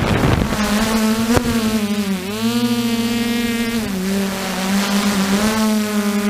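DJI F550 hexacopter's six motors and propellers humming as it flies, heard from its onboard camera; the pitch dips about two seconds in, drops a little further near four seconds, then rises back up. Wind rushes over the microphone at the start.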